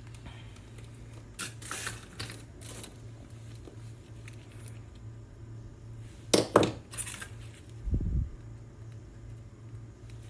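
Oyster shells clicking, scraping and cracking as small oysters are pried open with pliers, with the sharpest clicks a little past halfway and a dull thump near eight seconds. A steady low hum runs underneath.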